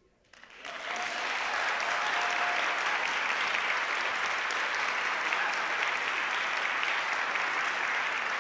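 Audience applauding. The applause breaks out about half a second in, after a brief hush, and then holds steady.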